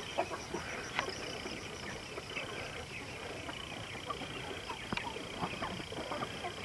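Chickens clucking and chicks peeping in a dirt yard, many short scattered calls, over a steady high trill in the background. A couple of sharp ticks, about a second in and near five seconds.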